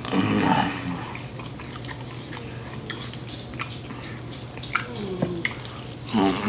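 Close mouth sounds of people chewing and biting into chicken wings, with scattered small wet clicks and smacks over a low steady hum.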